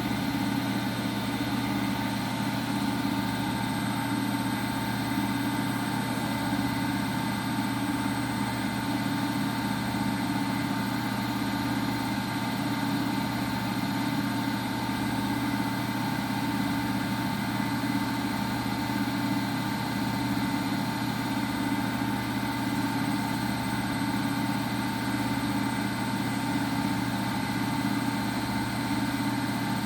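Washing machine running steadily: an even motor hum and whine, with a slow low throb every couple of seconds.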